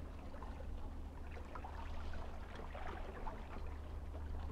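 Faint, irregular lapping of calm sea water against the shore, over a low steady hum.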